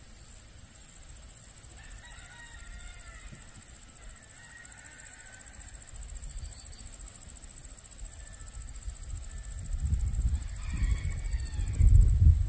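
A rooster crowing, about two seconds in and again near the end, over a steady high drone of insects. A low rumble of wind buffeting the microphone builds up in the last seconds and is the loudest thing there.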